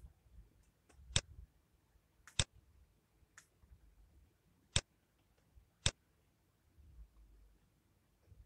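Computer mouse clicking: a handful of short, sharp single clicks at irregular intervals, the loudest about 1, 2.5, 5 and 6 seconds in.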